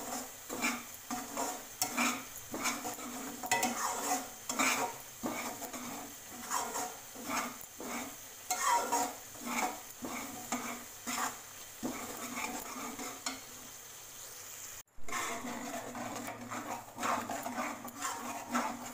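Slotted metal spatula scraping and stirring semolina around an aluminium kadai in quick repeated strokes, about two a second, over a faint sizzle of the semolina roasting in oil on low heat. The stirring breaks off briefly about three-quarters of the way through.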